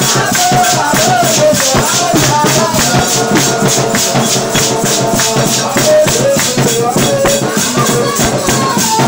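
Church dance music: shakers keep a steady quick beat under voices singing a melody.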